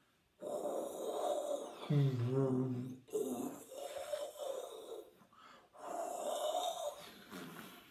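A man imitating the howling wind of a snowstorm with his mouth: three long breathy whooshing gusts, the first turning into a wavering hooting voice.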